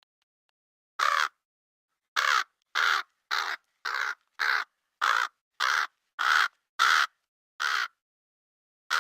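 A crow cawing: one caw, then a run of about ten caws at roughly two a second, and one more near the end, with dead silence between the calls.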